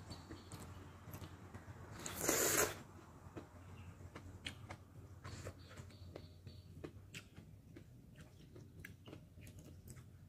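Close-up eating of instant ramen: one loud slurp lasting about half a second, about two seconds in, followed by scattered small wet chewing clicks and the odd tap of chopsticks in the bowl.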